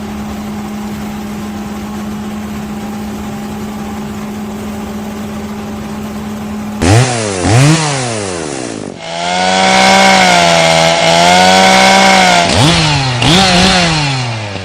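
A steady engine drone, then about seven seconds in a chainsaw engine revved in two quick blips, held at high revs for about three seconds, and blipped twice more.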